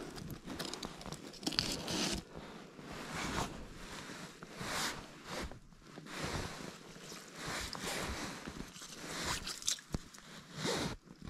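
Footsteps crunching through deep snow, an uneven run of crunches about every second.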